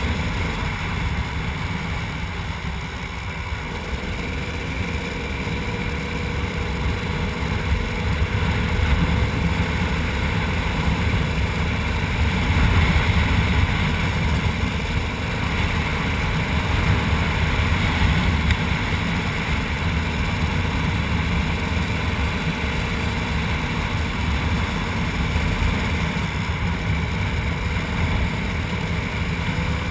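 KTM 300 EXC two-stroke single-cylinder engine running steadily at road speed, a little louder from about a third of the way in.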